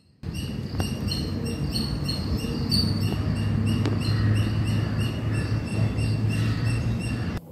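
Birds chirping in short notes repeated again and again at several pitches, over a steady low rumble of wind.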